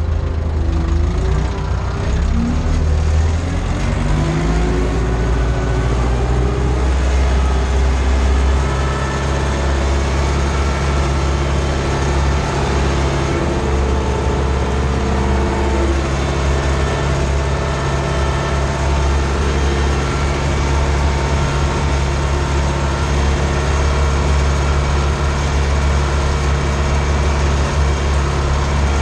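Ursus C-360 tractor's four-cylinder diesel engine running steadily under load while pulling a field cultivator, heard from inside the cab. The engine pitch wavers over the first few seconds, then holds steady.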